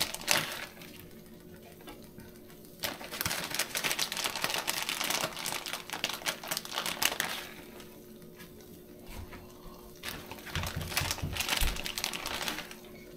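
Food frying on a Blackstone flat-top griddle: a dense crackling sizzle that swells and fades twice.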